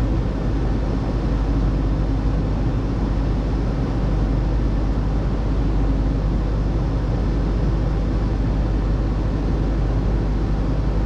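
Case IH 2588 combine's diesel engine running steadily at a constant speed.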